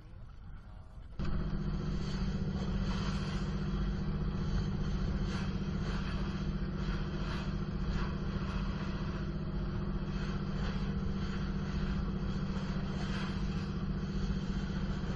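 Fishing boat under way at speed: its engine running steadily, with the rush of water and spray as the hull pushes through heavy swell. The sound comes in abruptly about a second in.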